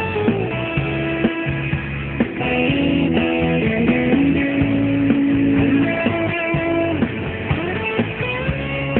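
Rock song playing, in an instrumental passage between sung lines, led by guitar.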